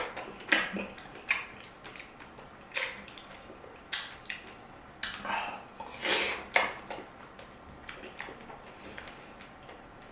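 Close-up eating sounds: irregular clinks of a utensil against a dish mixed with wet chewing or slurping, fewer and fainter over the last few seconds.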